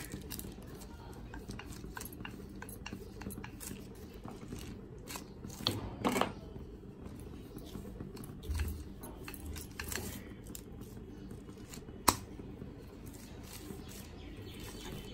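Wooden rolling pin rolling naan dough on a plastic cover over a chapati board: soft rubbing and crinkling of the plastic, with a few sharp clicks, the loudest about twelve seconds in.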